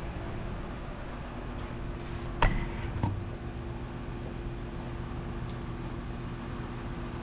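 Steady low mechanical hum, with a sharp click about two and a half seconds in and a softer knock just after.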